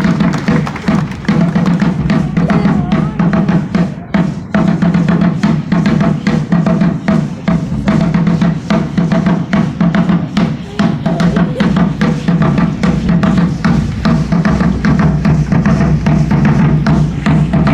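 Ceremonial drumming by danzantes: a steady, fast beat of drum strokes that keeps going without a break, the deep drum tone the strongest part.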